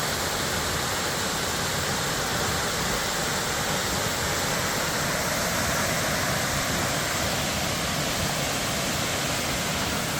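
Horsetail Falls, a waterfall, pouring steadily into a small pool: an even, unbroken rush of falling water.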